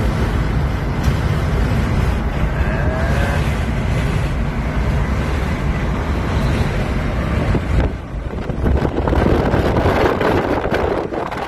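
Car driving at highway speed, heard from inside the cabin: a steady rumble of road and wind noise, with wind on the microphone.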